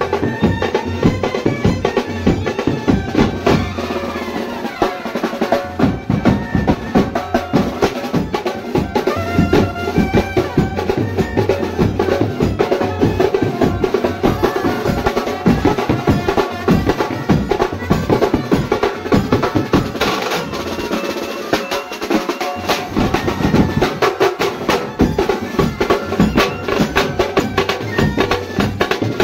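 Mumbai banjo party brass band playing: trumpets, clarinet and saxophone carry a melody over dense snare and bass drum beats.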